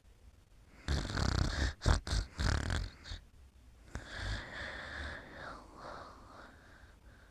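Snoring in sleep: a loud snore breaking into several short pulses about a second in, then a softer, longer breath from about four seconds.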